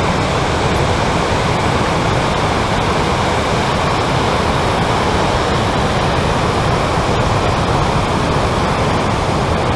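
Big winter-swell waves breaking: a loud, steady rush of surf and whitewater with no distinct single crashes.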